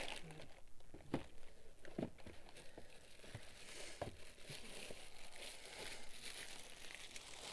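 Faint crinkling and rustling as a shoe is picked up and handled, with a few light knocks.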